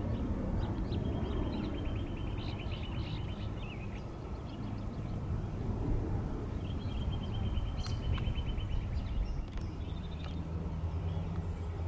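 A steady low outdoor rumble, typical of distant jet traffic at an airport, with a small bird's rapid trill heard twice, and a few short chirps.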